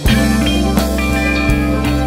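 Background music: a guitar-led rock track with bass and drums that comes in louder right at the start.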